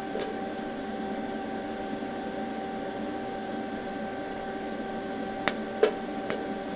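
Steady machine hum with several fixed tones from the TIG welder standing by between tacks on thin sheet steel. A few short sharp clicks come near the start and three more late on; there is no rise in level of a running arc.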